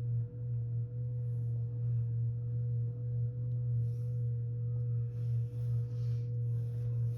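A vacuum cleaner running steadily: a muffled low drone with a thin, steady whine above it.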